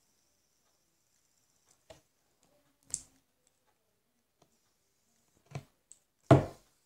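A few sharp clicks and knocks from handling a plastic fidget spinner, the loudest just after six seconds in. A faint high whine stops about two seconds in.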